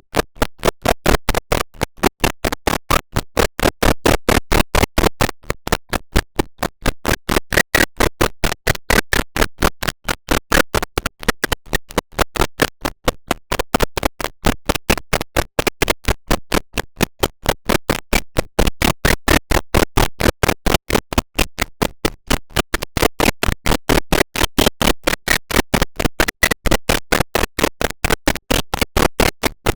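A rapid, even train of sharp clicks or taps, several a second, going on without a break.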